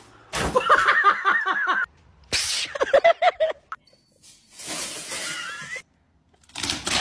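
A person laughing in rapid, pitched 'ha-ha-ha' runs, twice in a row, followed by a noisier stretch of voice and household commotion and a short sharp burst near the end.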